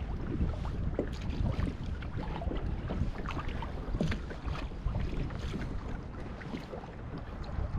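Wind buffeting the microphone with a steady low rumble, over small irregular splashes of water lapping against a kayak hull.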